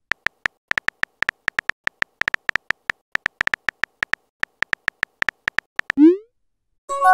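Texting-app keyboard sound effects: quick, irregular synthetic key clicks, one per typed letter, as a message is typed out. About six seconds in a rising swoosh marks the message being sent, and a short chime of several tones follows just before the end.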